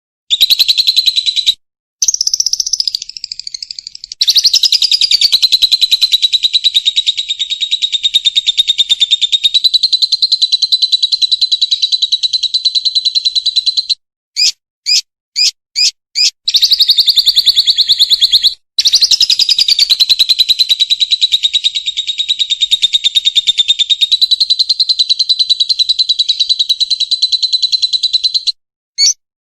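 Lovebird singing long, rapid chattering trills, each running several seconds and one nearly ten, broken by short pauses. Five short separate chirps come about halfway through.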